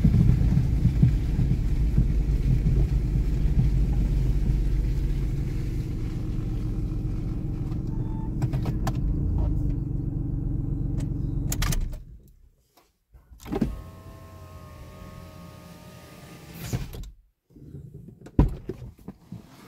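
Inside a car's cabin: the engine and tyres rumbling along a wet dirt track, stopping abruptly about twelve seconds in. Then a few clicks and an electric window motor whining for a couple of seconds.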